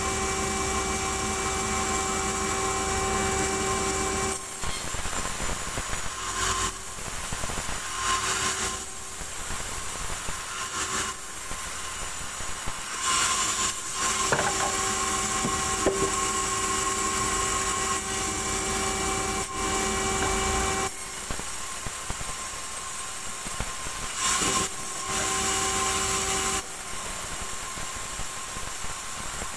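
Sawmill band saw running and ripping lengthwise through a log. Its steady hum gives way to a rougher, hissing cutting sound several times, starting about four seconds in, as the log is fed through the blade.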